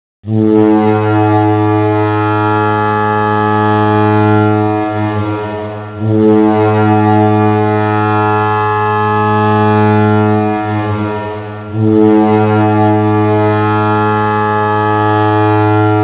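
Toledo Walleye's ice hockey goal horn sounding three long, low blasts back to back, each about five and a half seconds.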